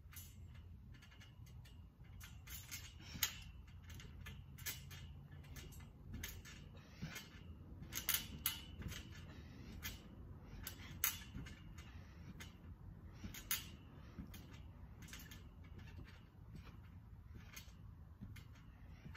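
Trampoline springs and frame creaking and clicking irregularly as someone crawls and then bounces on the mat, with a few sharper squeaks louder than the rest, over a steady low hum.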